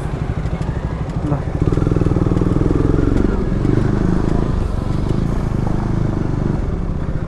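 Motorcycle engine running with a fast, even pulse, louder from about a second and a half in.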